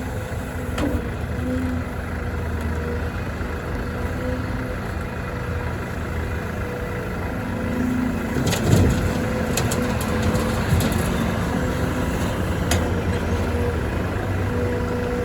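Heavy diesel engines of an excavator and dump truck running steadily while soil is loaded, with a few sharp metallic clanks partway through.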